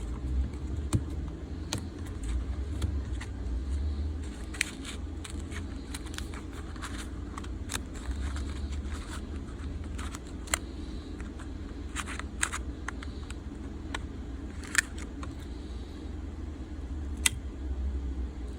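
Scattered sharp clicks and light scraping of small hand tools working on a phone's back glass, heard over a steady low rumble.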